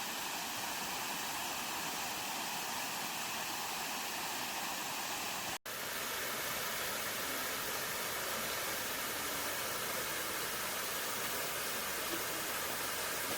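Waterfall rushing: a steady hiss of falling water, cut off for an instant about five and a half seconds in.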